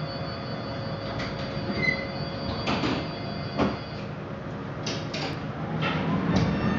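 Inside a Tatra T3 tram: a steady hum of onboard equipment with a series of sharp clicks and knocks. Near the end a rising whine sets in as the tram begins to move off.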